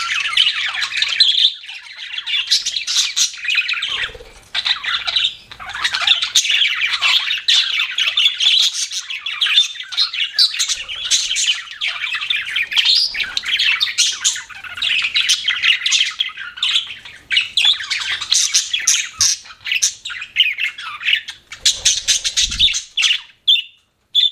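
Pet budgerigars chirping and chattering in a continuous dense stream of quick, high warbles and squawks, with a short lull about four seconds in.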